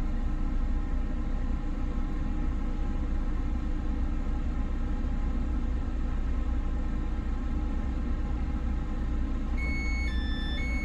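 Steady low rumble and hum of a train standing at the station platform. About a second before the end, an electronic chime of alternating notes starts up.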